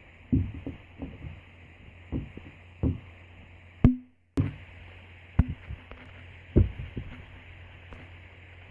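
A series of soft, low thumps and knocks at irregular intervals over a steady low hum, with a sharper knock about four seconds in followed by a brief dropout of all sound.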